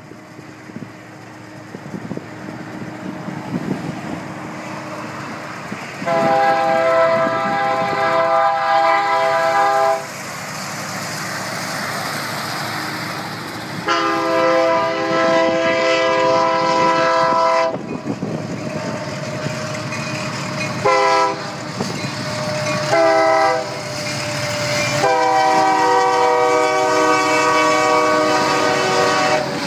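Diesel freight locomotive's air horn sounding a multi-note chord in the grade-crossing pattern: two long blasts, a short one, then a long one. The train's rumble runs underneath.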